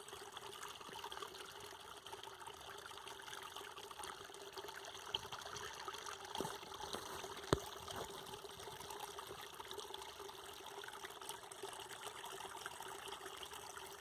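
Water trickling steadily with fine crackling detail and a faint steady tone underneath; one sharp click about seven and a half seconds in.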